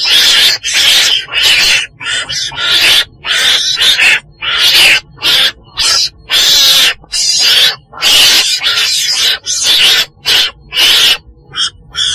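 Harsh, raspy screeching calls of a weasel (Mustela), coming in an irregular run of short bursts about two a second, some clipped and some drawn out. It is a recorded call of the kind used to lure animals to traps.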